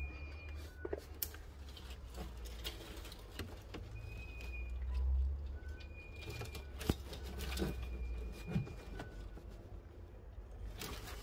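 A bird calling in short whistled notes at two alternating pitches, repeated several times, over scattered clicks and knocks and a low rumble.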